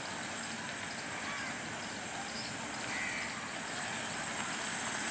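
Diesel locomotive approaching slowly with its train, a steady distant engine drone over a steady high-pitched hiss, growing slightly louder in the second half.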